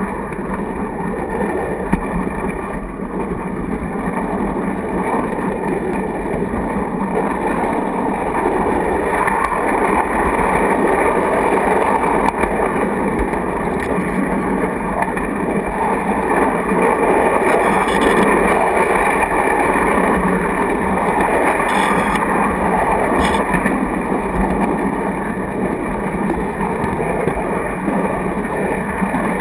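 A large-scale model railway car rolling along its track, heard from inside the car as a steady rattling rumble, with a few faint clicks past the middle.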